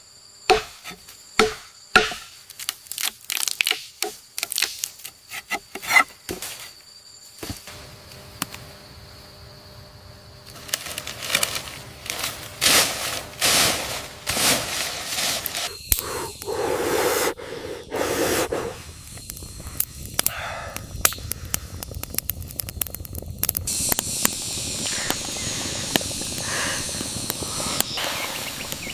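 A quick run of sharp strikes, about two a second, for the first seven seconds or so, then rough scraping, crackling and tearing sounds.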